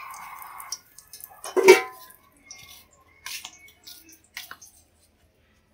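A metal spatula scraping around inside a nonstick wok, with one louder ringing clank a little under two seconds in, then a few light knocks and clatter.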